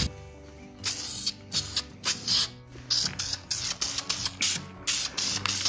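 Aerosol can of Dupli-Color engine enamel spraying in a series of short hissing bursts, about one to two a second, with brief gaps between, as paint goes onto a cast iron exhaust manifold.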